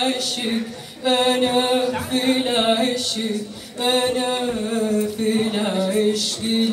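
A woman singing solo into a microphone with no instrument heard. Long held notes with a slight waver come in three phrases, with short breaks about a second in and just before four seconds in.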